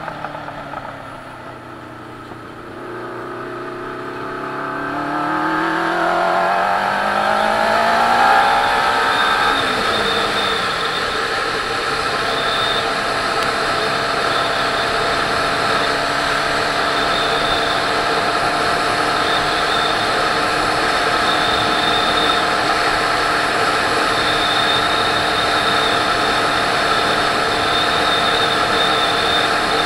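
Motorcycle engine through its exhaust pipes. It eases off for the first couple of seconds, then accelerates with the pitch climbing and the sound growing louder for several seconds, then settles into a steady cruise.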